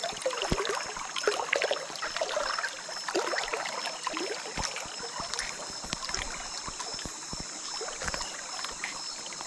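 River water splashing and dripping as a gill net is hauled in by hand, with many small irregular splashes and knocks. A steady high-pitched drone runs underneath.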